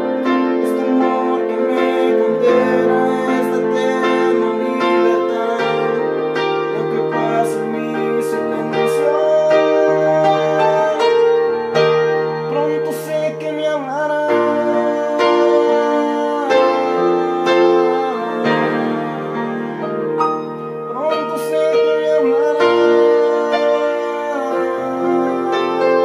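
Electronic keyboard played in a slow ballad, with piano-like chords held over changing bass notes and a few gliding notes.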